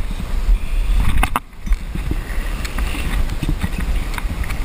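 Wind buffeting the microphone: a steady low rumble with a brief lull about a second and a half in, and a few faint clicks.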